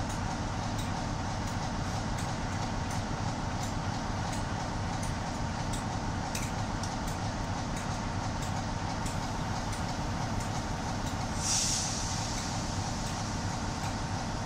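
Class 47 diesel locomotive's Sulzer twelve-cylinder engine idling steadily while standing, with a short hiss of released air a few seconds before the end.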